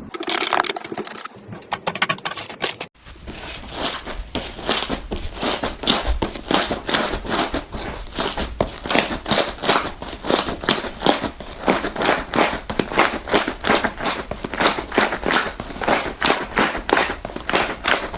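Slime being squeezed and pressed by hand, giving rapid, dense crackling and popping. A brief break comes about three seconds in, then steadier crackling.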